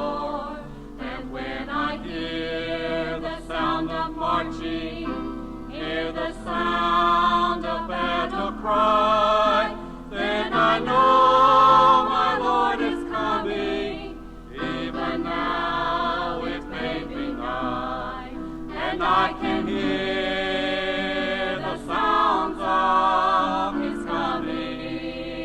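A small vocal group singing a gospel song in harmony, with accompaniment.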